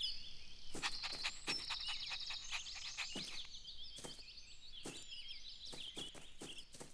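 Quiet garden birdsong ambience of rapid high chirps and short trills, cut across by a string of short sharp clicks and taps.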